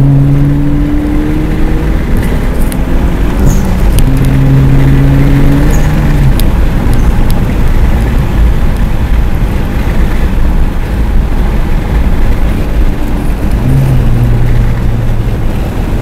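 Honda Civic hatchback's 1.5-litre turbocharged four-cylinder engine under way through the gears, heard inside the cabin over loud road and wind rumble. The engine note changes a few seconds in and drops again near the end as gears are changed.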